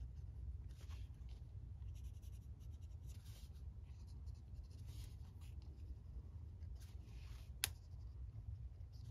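Pencil scratching on watercolour paper in faint, short strokes, with one sharp click about seven and a half seconds in.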